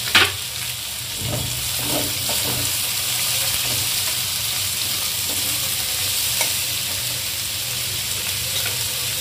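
Grated cauliflower, onion and capsicum sizzling in hot ghee in a metal kadai while a perforated steel spoon stirs and scrapes through them, with a sharp metal clink right at the start.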